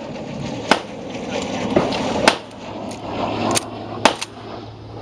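Shotgun shots at the range: five sharp cracks, spaced unevenly, the last two in quick succession.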